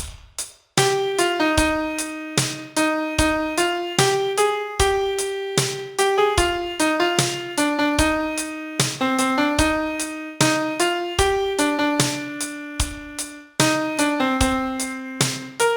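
Piano playing the slow melody of a Mandarin pop ballad, one note at a time over lower accompanying notes, starting just under a second in after a few sharp clicks.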